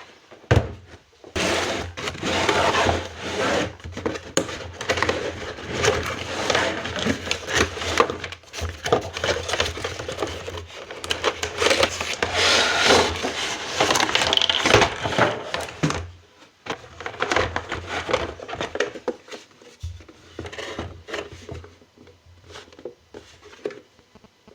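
Hands unboxing a toy set: packaging rustling and rubbing, with clicks and taps. The handling is dense and loud at first, then turns to quieter, scattered clicks from about sixteen seconds in.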